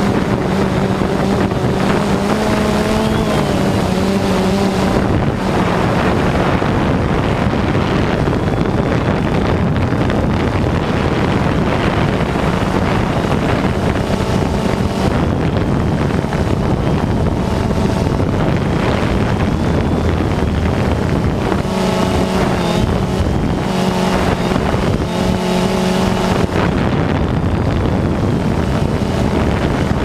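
DJI Phantom 2 quadcopter's motors and propellers running steadily, heard from the camera mounted on the drone, with wind buffeting the microphone. The motor pitch wavers and several times steadies into a clearer hum as the motors adjust speed.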